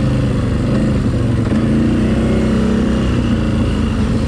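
Quad bike (ATV) engine running at fairly steady revs, its pitch wavering a little.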